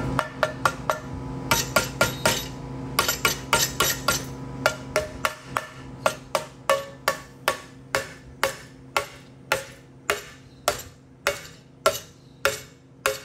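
Light, ringing metal-on-metal taps on a galvanized steel tube laser-welded onto a stainless steel plate, striking the joint to test the strength of the weld. Irregular at first, then a steady beat of about three taps a second that grows slightly quieter.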